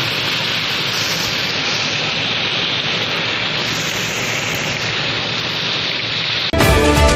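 Heavy rain pouring in a windstorm, a steady, dense hiss. About six and a half seconds in, loud news theme music cuts in abruptly over it.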